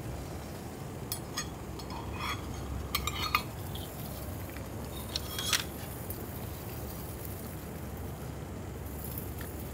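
Light metallic clinks of a titanium cup's lid being handled and lifted off, scattered over the first half and loudest about three seconds in, with a last pair about five and a half seconds in. Underneath runs a steady low rushing noise.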